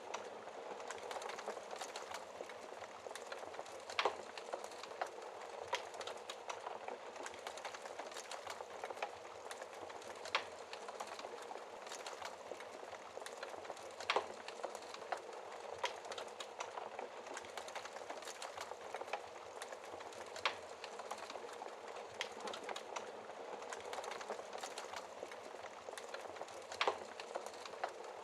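Wood fire in a fireplace burning steadily, with a continuous soft crackle and occasional sharper pops.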